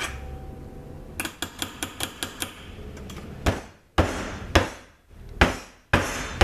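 Soap loaf mold filled with fresh hot process goat's milk soap being banged down on the counter to knock out trapped air: six heavy thumps, about half a second to a second apart, starting about three and a half seconds in. Before them comes a quick run of light clicks from a metal spoon against the mold.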